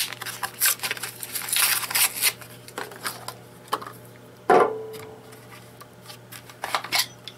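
Plastic blister pack of D-cell batteries being handled and opened, with crinkling and small clicks. About four and a half seconds in, a sharp knock with a short ring, a battery set down on the wooden tabletop, then a few more light clicks near the end.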